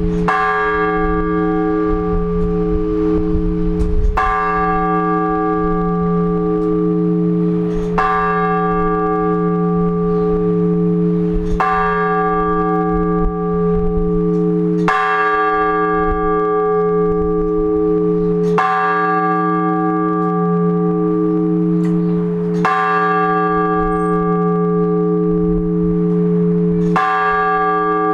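A single large Orthodox church bell struck at a slow, even pace, about every four seconds, eight strokes in all. Each stroke rings on with a pulsing hum until the next. This is the measured tolling of blagovest, the single-bell call announcing the start of a service.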